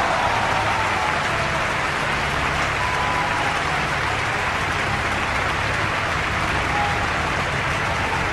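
Steady hiss of rain over a low droning hum, with a few faint wavering tones now and then.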